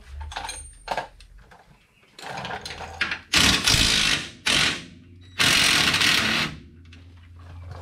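Impact wrench run in three bursts, the first and last about a second long and a short one between, undoing the rear shock's mounting bolt. Lighter clicks and tool rattles come before the bursts.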